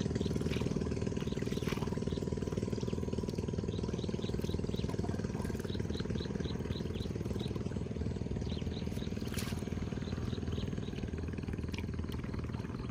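A small engine running steadily, with runs of faint high chirps over it.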